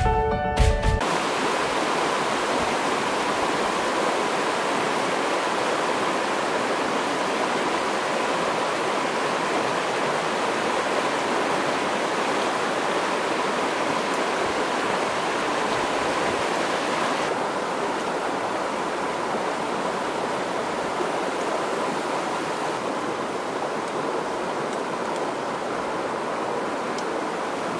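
Steady rushing of flowing stream water, even and unbroken, with a faint steady high tone above it. Music cuts off about a second in.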